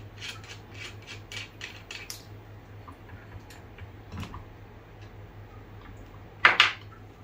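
Small metal parts of a boom-stand stereo microscope being worked by hand with a small tool: a quick run of regular clicks, about four a second, for the first two seconds, then a single knock, and about six and a half seconds in two sharp clacks in quick succession, the loudest sounds.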